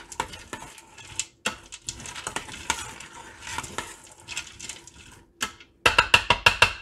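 A metal utensil stirring frozen corn, cubed butter and cream cheese in a stainless steel multi-cooker pot, scraping and clinking against the metal. Near the end comes a rapid run of about nine loud, ringing metal taps.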